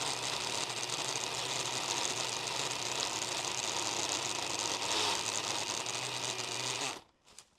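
Milwaukee M18 battery-powered pole saw running steadily as its chain cuts through a tree limb, then stopping abruptly about seven seconds in.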